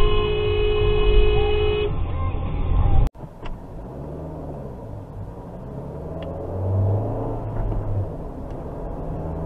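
A car horn held in one long steady blast that stops about two seconds in, over road noise. After an abrupt cut, quieter engine and road noise from a car driving in traffic.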